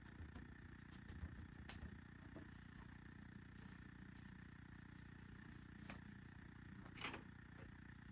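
Near silence: steady low room hum, with a few faint clicks, the clearest about seven seconds in.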